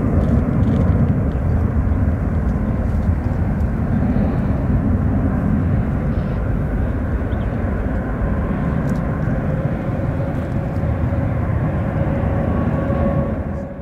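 Jet engines of a heavy Boeing freighter at high thrust: a loud, steady rumble with a faint whine over it, cutting off suddenly at the end.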